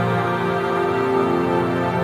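Ambient new-age music of slowly shifting, sustained layered tones.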